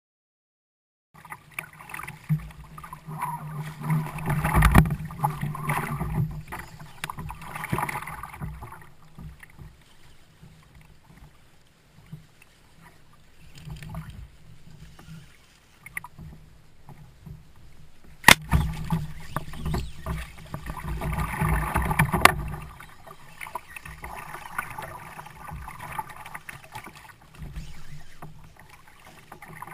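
Water splashing and sloshing around a kayak, coming in uneven swells, with two sharp knocks well past the middle.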